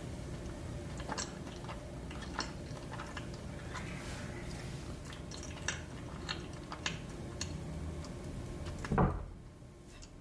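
Close-miked eating sounds: scattered small clicks and a utensil clinking against dishware, with a louder thump about nine seconds in.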